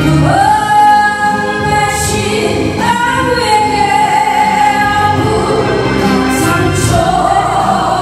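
Woman singing a song into a handheld microphone over musical accompaniment, holding long notes with vibrato.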